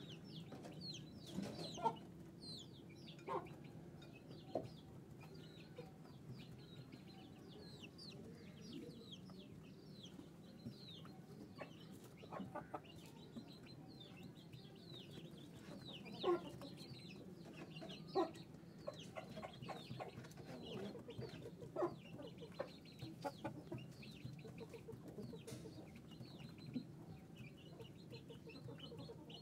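Chickens clucking: a handful of short, louder calls, spread through the clip, over a continual faint twitter of high chirps and a low steady hum.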